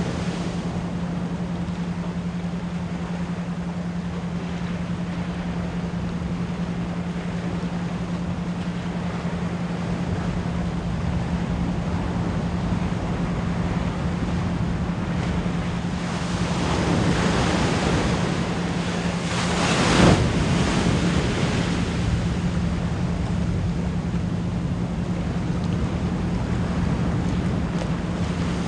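Ocean waves washing in steadily, swelling and breaking loudest about two-thirds of the way through, layered under a steady 174 Hz pure tone pulsed as an isochronic entrainment tone.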